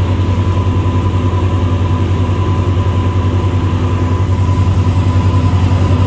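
Motor boat engine running under way, a steady low drone with a quick, even pulse, over a rushing hiss of wake and air. A thin steady whine sits above the drone.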